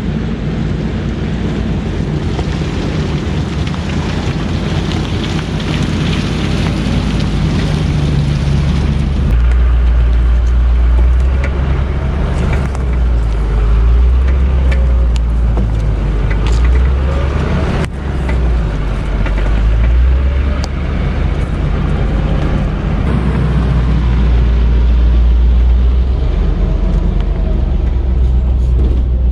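Land Rover Discovery II driving off road into mud, its engine running continuously under varying load. About a third of the way in a deep low rumble sets in and swells and eases for the rest of the stretch.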